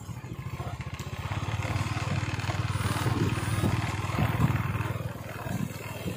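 A small motorcycle engine running with a rapid, even low pulse, growing louder from about a second in and easing off near the end, with tyre hiss on the wet road.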